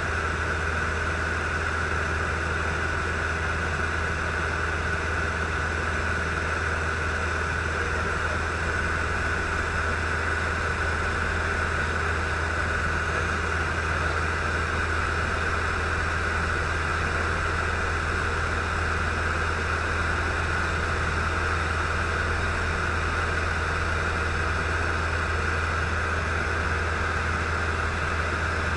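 Robin DR400 light aircraft's piston engine and propeller running with a steady drone in flight, heard from inside the cockpit.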